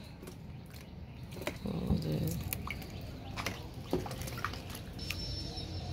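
Rainwater dripping in scattered single drops during light rain, with a brief low call about two seconds in.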